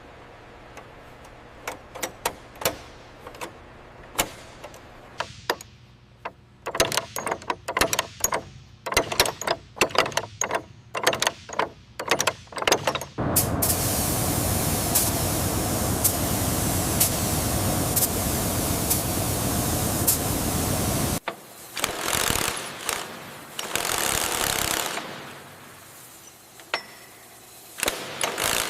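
Workshop tool sounds: a run of sharp irregular clicks and knocks, then a steady loud mechanical noise for about eight seconds with a faint regular tick, then a few shorter bursts of the same noise.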